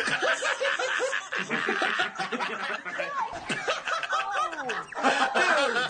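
Several men laughing together: overlapping snickers and chuckles in short bursts.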